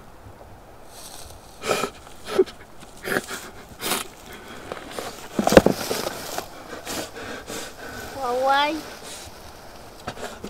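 A young man crying: several short, sharp sobs and sniffs, then a wavering, breaking cry about eight seconds in.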